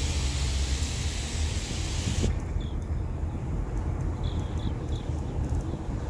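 Road rumble and wind noise inside a moving Kia Sportage with its panoramic sunroof open. The high wind hiss drops away sharply about two seconds in, leaving the low road rumble.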